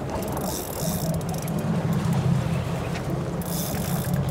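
Large saltwater spinning reel (Shimano Stella SW) ratcheting in two spells of fast clicking, about a second long each, near the start and again near the end, as a hooked giant trevally pulls hard on the line. Under it runs the boat's steady engine hum.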